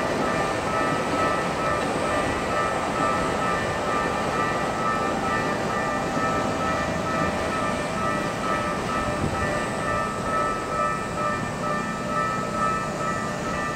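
Japanese railway level-crossing warning bell ringing continuously, a steady repeating high two-tone ding, over the steady rumble of rail traffic.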